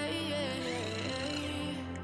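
Background pop music: a slow melodic track with a sustained, gliding vocal-like line between sung phrases.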